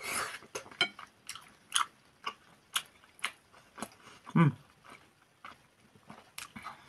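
Close-up wet chewing of soft boiled pelmeni in sour-cream sauce: a string of small mouth clicks and smacks, about two a second. A brief hummed vocal sound comes partway through.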